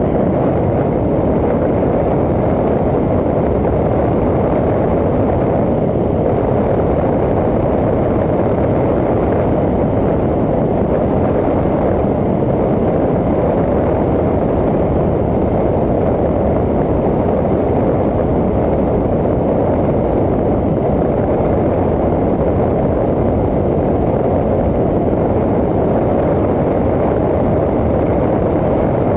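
Steady rushing wind and road noise over a vehicle-mounted camera's microphone while riding along a paved road, with no clear engine note.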